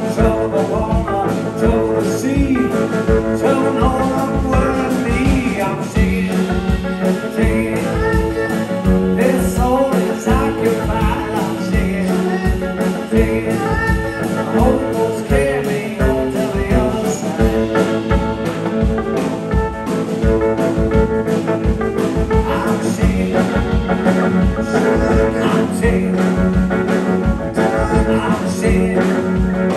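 Live blues band music with a steady beat.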